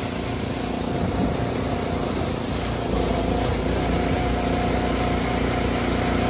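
Lifted golf cart driving along a dirt trail with its throttle restricted to 20%: a steady running hum with a level whine over it, a little louder from about three seconds in.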